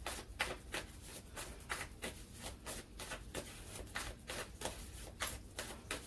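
A deck of tarot cards being shuffled by hand: a quiet run of quick, uneven clicks and flicks of card against card.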